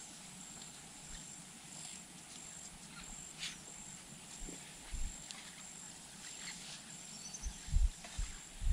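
Quiet rural outdoor ambience with a high, thin pulsing insect call running steadily, and a few low thumps near the end.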